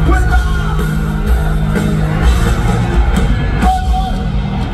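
Live rock band playing loud: electric guitars and drums, with the singer's voice over them, heard from the arena audience.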